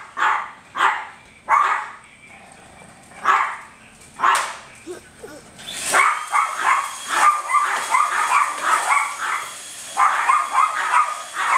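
Small dog barking: single sharp barks about a second apart, then a quicker run of high yaps in the second half.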